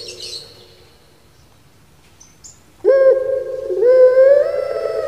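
Puter pelung, a Barbary dove (Streptopelia risoria) kept for its song, starts a long coo about three seconds in: a low held note that bends slightly upward partway through. A brief soft hiss near the start.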